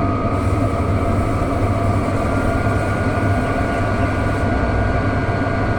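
Chinese diesel heater running at full output on a rice bran oil and acetone mix: a steady low hum with a thin whine over it that creeps slightly up in pitch as it comes up to full speed.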